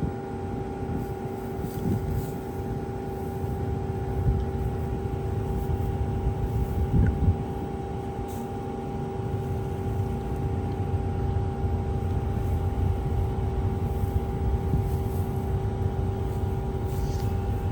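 Combine harvester running at full throttle while cutting wheat: a steady low rumble with a steady whine over it, and a few small bumps.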